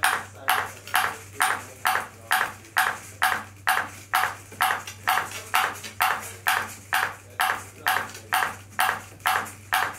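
Ping pong ball bouncing over and over on a robot's clear plastic paddle dish, a sharp hit about twice a second in a steady rhythm, over a faint steady low hum.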